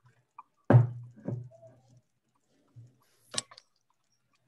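Kitchen handling knocks as a ceramic pasta bowl is set down on a wooden cutting board: a loud knock about a second in, a second softer knock just after, then a sharp click near the end.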